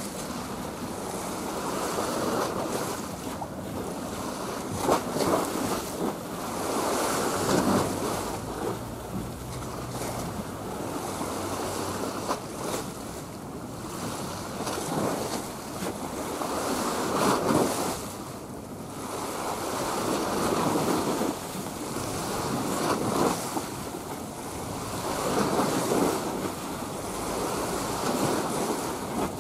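Wind buffeting the microphone over waves washing along the shore, the noise swelling and easing every two to three seconds.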